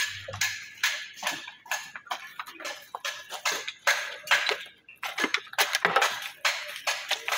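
Flat stone pieces being chipped and tapped with a hand tool: quick, irregular clinking strikes, a few a second.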